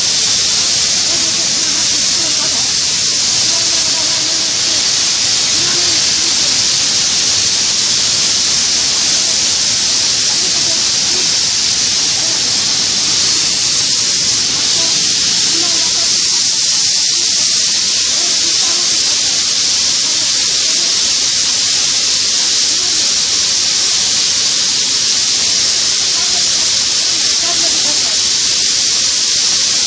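Steady, loud, high-pitched hiss of blast furnace plant equipment, unchanging throughout, with faint voices underneath.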